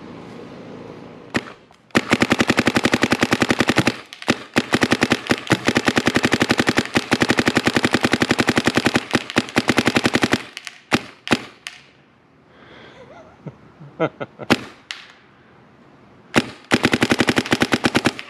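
ICD Promaster paintball marker firing rapid strings of shots. A long string runs for about eight seconds, followed by a few single shots, then another rapid string starts near the end.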